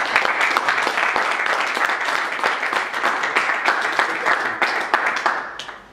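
Audience applauding, starting sharply and dying away near the end.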